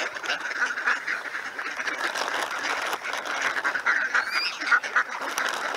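A flock of ducks quacking continuously, many short calls overlapping one another.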